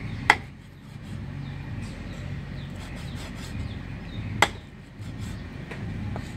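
Two sharp knocks about four seconds apart, over a steady low rumble.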